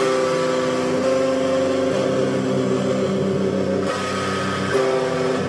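Distorted electric guitar, a Stratocaster-style solid-body, strumming held chords that change every second or two.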